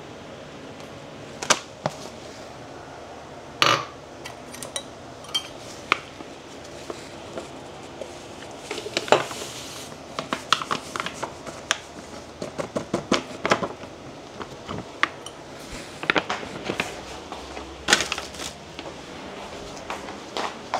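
Pink rock salt poured from a plastic pouch into a glass jar: a brief hiss of grains about nine seconds in, then a quick run of small ticks. Scattered clicks and taps of the pouch and jar being handled come before and after.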